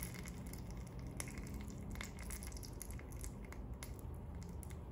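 Egg poured into a drop of hot olive oil in a miniature glass pan, crackling and sputtering faintly with irregular small pops.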